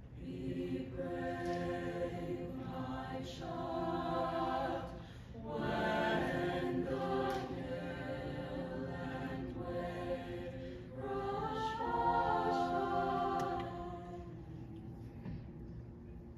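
High school mixed choir singing in several sustained phrases with short breaks between them, swelling loudest about six and twelve seconds in, then fading down near the end.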